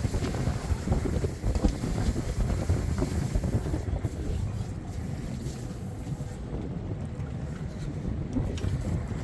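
Wind buffeting the microphone over the steady low rumble of a boat at sea, with a few faint knocks.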